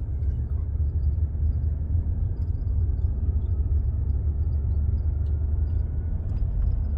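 BMW M235i's turbocharged straight-six and road noise heard from inside the cabin under acceleration: a steady low rumble with a faint thin squeal above it that rises slightly in pitch. The squeal appears only on throttle and fades when coasting; the owner places it at the right or centre front, cause unknown.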